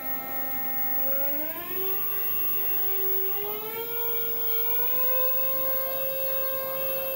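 ARM theremin, a handheld electronic instrument played by a circular dial laid out like a keyboard, sounding one sustained clear tone. The tone slides smoothly up from a low note through a middle one to a note about an octave higher, which it holds near the end.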